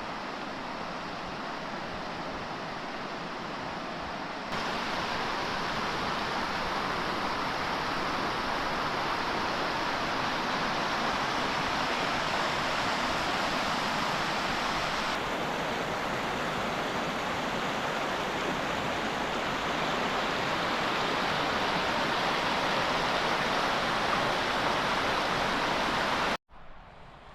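Falling Water Creek's water rushing, a steady hiss of flowing water that gets louder about four seconds in, shifts slightly midway, and drops away abruptly near the end.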